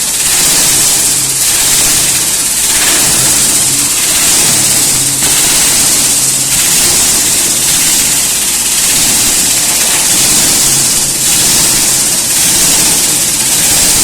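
Scrap grinder machine running steadily: a loud, continuous grinding hiss over a low motor hum, with a slight regular pulse about every second.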